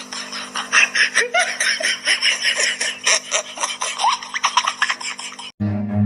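Laughter in rapid short bursts with some brief squeaky rises in pitch. Near the end it cuts off suddenly and low bowed-string music begins.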